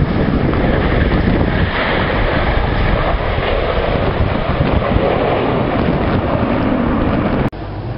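Jet engine roar from a formation of Aermacchi MB-339 jets of the Frecce Tricolori flying overhead, heavily mixed with wind buffeting the microphone. The roar drops away sharply near the end.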